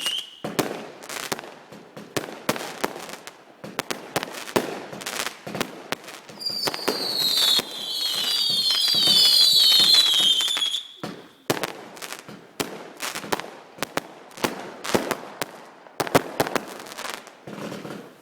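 Fireworks going off in quick succession: a dense run of cracks and pops, with several whistling fireworks sliding down in pitch together for a few seconds in the middle.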